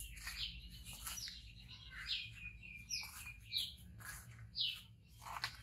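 Several small birds chirping and singing, in many short rapid calls, some sweeping up or down in pitch, over a steady low hum.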